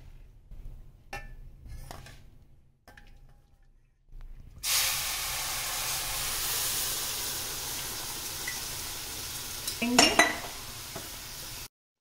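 Hot milk poured through a strainer into besan roasted in ghee in a hot pan, setting off a sudden, loud, steady sizzle that lasts about seven seconds and then cuts off. A few light utensil clicks come before the pour, and a sharp knock sounds near the end.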